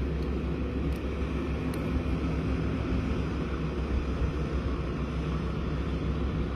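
Steady low drone of heavy diesel engines working hard under load: a loaded log truck pulling uphill with a tractor helping it.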